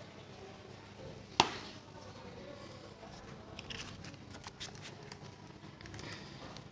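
Plastic makeup palettes and compacts being handled: one sharp click about a second and a half in, then a few light clicks and taps.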